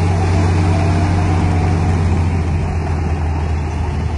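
D58P bulldozer's diesel engine running steadily with a low, even hum.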